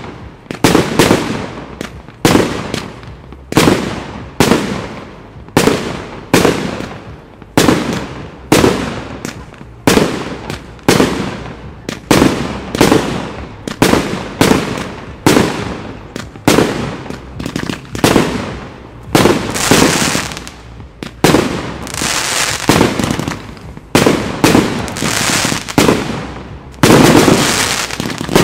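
Daytime fireworks firing a rapid series of loud bangs, about one or two a second, each with an echoing tail. About two-thirds in it thickens with crackle, and near the end it becomes a dense, continuous barrage.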